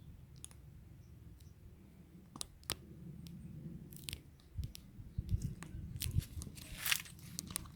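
Irregular crunching, snapping and crackling, with dull low knocks in the middle and a short rustle near the end. This is typical of dry leaves and twigs being stepped on or brushed through.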